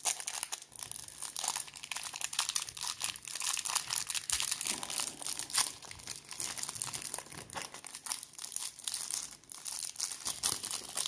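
Plastic packaging of a Topps Series 1 baseball card box being handled and torn open by hand: a dense, irregular crinkling and crackling of wrapper.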